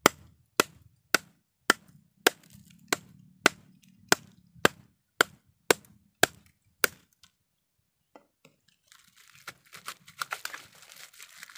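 A block of ice in a plastic bag being cracked with the butt of a knife handle: about a dozen sharp knocks, nearly two a second. After a short pause, the plastic bag crinkles and the broken ice crunches as it is squeezed by hand.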